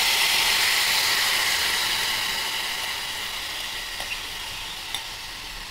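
Wet, freshly washed rice sizzling loudly in hot ghee in a pressure cooker as its water hits the fat and boils off. The sizzle fades steadily, with a couple of faint clicks near the end.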